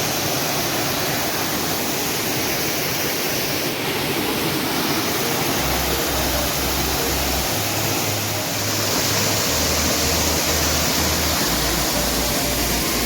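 Water pouring down a large waterfall, a steady dense rush. From about halfway through, a low, evenly spaced pulse runs beneath it, a few beats a second.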